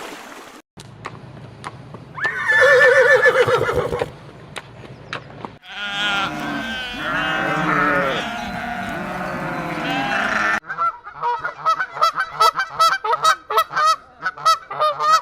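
Farm animals calling in three short cuts: a single wavering call, then several animals calling over one another, then a run of rapid, repeated short calls.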